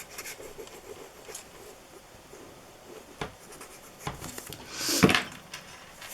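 Light scratchy rubbing of glue being spread on card, with a sharp tap about three seconds in and a louder swish of card being handled around five seconds in.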